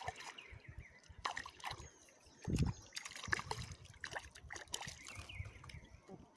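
A hooked mandi catfish splashing at the water's surface as it is pulled alongside and lifted out by hand, with water sloshing and dripping. There is a dull thump about two and a half seconds in.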